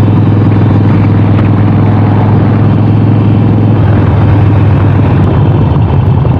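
Harley-Davidson Sportster 48's 1200 cc air-cooled V-twin engine running under way on the road, a steady low throb whose note changes and grows choppier about four seconds in.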